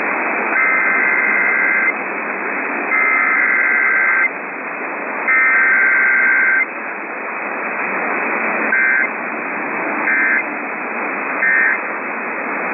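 Emergency Alert System SAME digital header: three buzzing data bursts of just over a second each, followed by three short end-of-message bursts, which mark the close of the alert. It is heard over AM radio, with a steady static hiss underneath.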